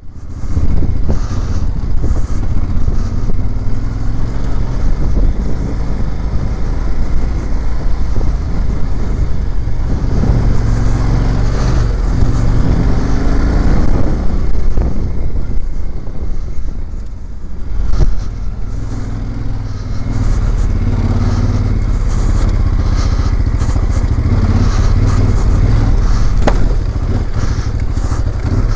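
Motorcycle engine running as the bike is ridden over a rough dirt and sand track, its note rising and falling with the throttle, with many short knocks from the bumpy ground. The engine eases off briefly about 17 seconds in, then picks up again.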